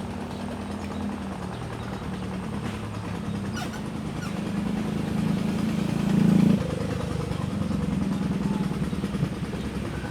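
Motorboat engine running as the boat passes, growing louder to a peak about six seconds in, then dropping off quickly.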